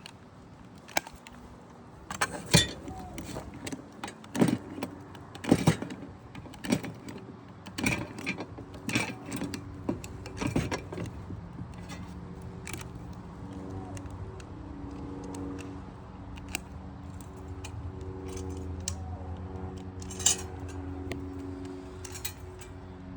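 Sharp metallic clicks and clacks of a hand rivet gun being worked, its handles squeezed and opened and its jaws and rivets rattling. About halfway through, a steady low hum sets in under the last few clicks.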